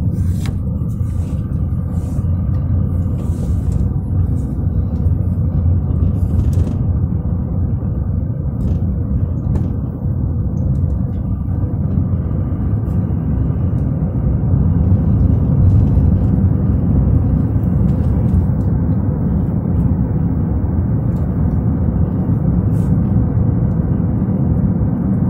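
Steady low rumble of a car's engine and tyres on asphalt while driving, heard from inside the cabin.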